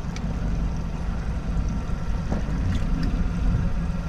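Steady low rumble aboard a small fishing boat at sea, with a constant low hum and a few faint light ticks.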